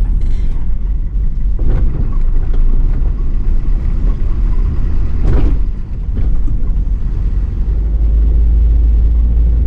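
Mercedes-Benz Atego expedition truck driving, its diesel engine and road noise making a steady low rumble. Two short knocks come about two seconds and five seconds in.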